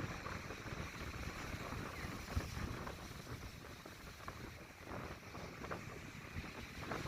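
Strong, cold sea wind droning and gusting across the microphone: a low rumbling noise that rises and falls with the gusts.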